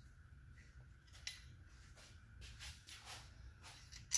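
Faint metallic clicks and light scraping of a long bolt being handled and fitted through a billet timing guide into the oil pump, with a sharper click near the end.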